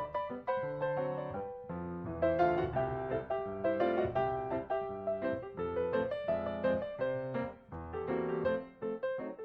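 Background piano music: a gentle melody of separate notes over chords.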